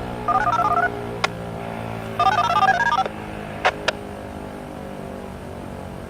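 Two quick strings of DTMF touch-tones, the first near the start and the second about two seconds in, with a few sharp clicks between them, over a steady low hum.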